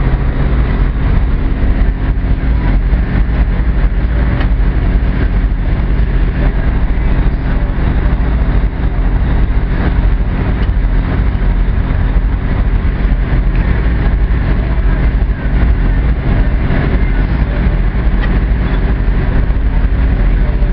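Fishing boat's engine running steadily, a constant low hum with a rush of wind and water over it.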